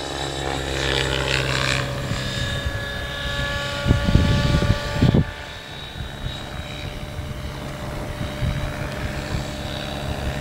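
Align T-REX 700 radio-controlled helicopter in flight, its rotor and drive giving a steady whine made of several held tones. Brief low buffeting about four to five seconds in.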